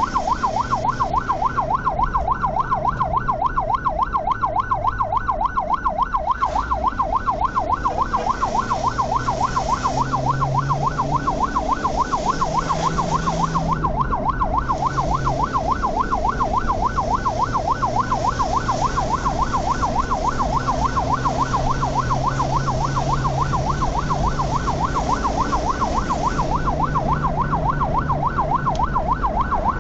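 Ambulance electronic siren on a fast yelp, a tone sweeping up and down several times a second without a break, heard from inside the moving ambulance over its engine and road noise.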